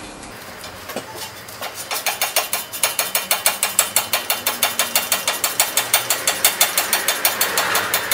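Hand ratchet turning a Torx bit to back out the brake caliper bolts, its pawl clicking rapidly and evenly. The clicking starts about a second and a half in.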